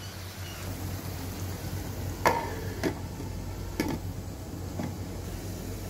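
Glass lid being set on a nonstick pan of frying beef, onions and tomatoes: four sharp clinks, the first the loudest and briefly ringing, over a faint steady sizzle.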